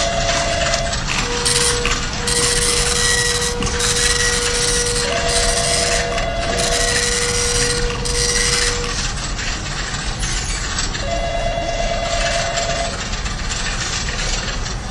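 Electronic telephone ringing, a warbling trill in bursts of about two seconds that sounds three times, about six seconds apart, with a steady phone-line tone, briefly broken, running through the first nine seconds, all over a loud, even hiss.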